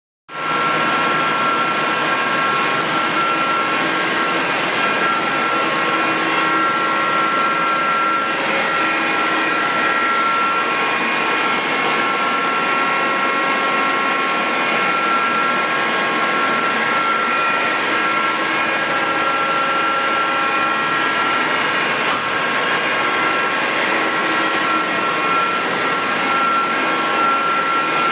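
Mori Seiki NL1500 CNC lathe running, a steady machine whine of several held tones over a hiss.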